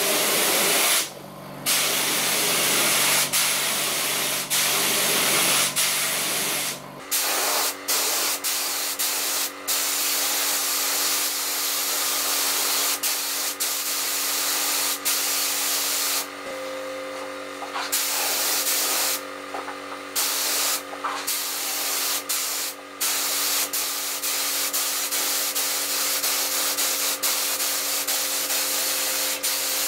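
Gravity-feed air spray gun with a 1.7 mm nozzle spraying glossy white acrylic paint: a loud, steady hiss of compressed air broken by several short pauses as the trigger is let go and pulled again. A steady hum runs underneath.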